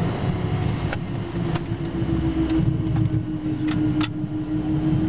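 Cockpit noise of a Learjet 60 rolling out after landing: the twin turbofan engines at low power give a steady hum over the low rumble of the wheels on the runway. A few light clicks come through, the sharpest about four seconds in.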